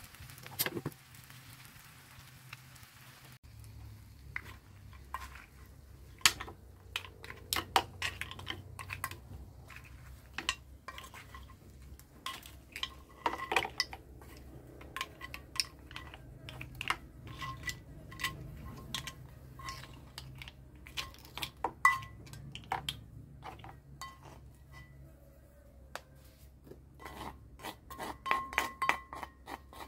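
A wooden spoon knocking and scraping against a cast iron pan, with mussel shells clinking, as the mussels, shrimp and broccoli are pushed out of the pan. Near the end comes a quick run of knocks as the spoon scrapes the last of the sauce out.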